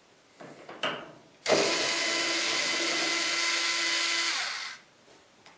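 Power drill backing a terminal-block screw out of an electric dryer, its motor whining steadily for about three seconds and then winding down. A few small clicks of handling come just before it starts.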